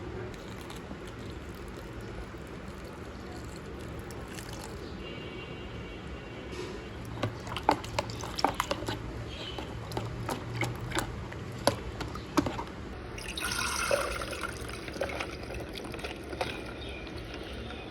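Kitchen water sounds: water poured and splashed, with scattered sharp clicks and clinks from about the middle on, and a louder rush of water about two-thirds of the way through.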